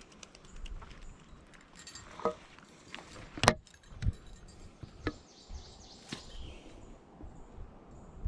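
Close handling noise: a scattered series of short clicks and knocks with light rustling, the loudest about three and a half seconds in.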